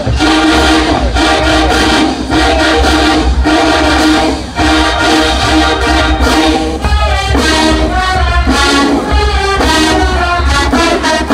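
Marching band playing: massed brass horns over drums and heavy low bass, with a steady beat.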